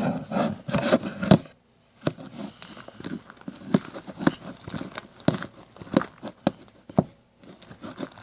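Popsicle stick stirring glue-based slime in a bowl as it is activated with contact lens solution and baking soda: irregular sticky clicks and tearing sounds, with brief pauses about two seconds in and near seven seconds.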